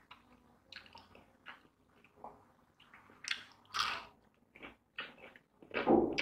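A man chewing and biting into fried food close to the microphone: irregular wet chews and mouth smacks, louder about three to four seconds in and loudest near the end.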